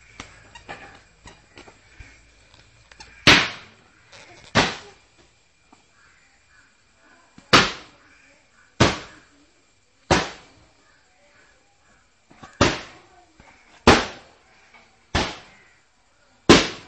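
A ball bouncing on hard ground: nine sharp smacks, coming in runs of two or three about a second and a quarter apart, with pauses between the runs.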